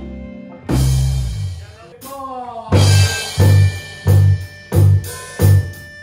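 Electric blues-rock band playing live with guitars and bass guitar. The playing breaks off, one heavy hit lands about a second in, a short bending glide follows, and then a steady heavy low beat starts up at about three strokes every two seconds.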